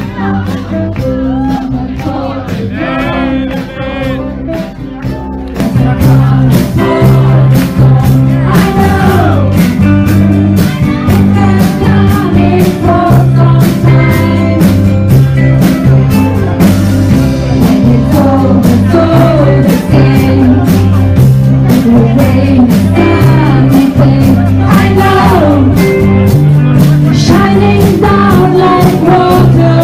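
Live band playing a rock-blues song, with acoustic guitar and a group of mostly women's voices singing together into microphones. It starts quieter and sparser, and the full band comes in much louder about five seconds in.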